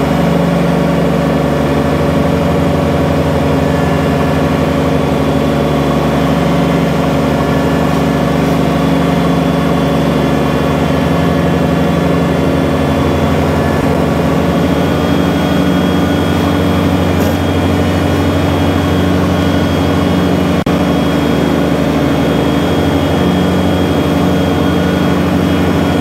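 Kubota BX subcompact tractor's three-cylinder diesel engine running steadily while it mows across a steep bank, its note shifting slightly about halfway through.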